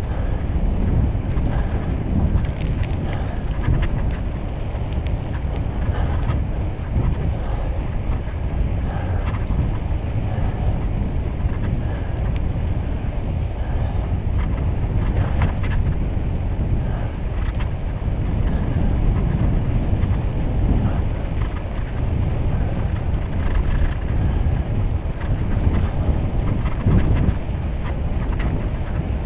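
Wind buffeting an action camera's microphone while cycling, over the rolling of bicycle tyres on asphalt: a steady low rumble with a few faint clicks.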